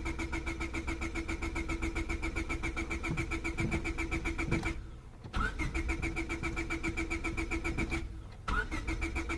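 Starter cranking the 2000 Honda Civic's 1.6-litre engine in three tries, with short breaks about five and eight seconds in; the engine turns over evenly but never fires. A no-start in damp weather, which the owner, smelling fuel, guesses is a spark problem.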